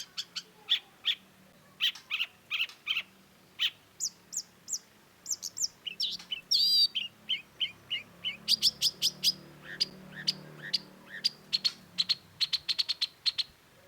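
Long-tailed shrike (cendet) in full song: rapid runs of short, sharp chirping notes, repeated in series with brief pauses, with a denser burst about halfway through.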